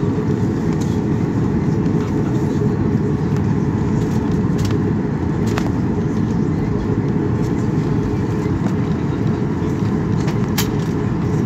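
Cabin noise inside a taxiing Boeing 737-800: the CFM56 engines at taxi power and the airliner rolling along the taxiway make a steady low rumble, with a few faint ticks.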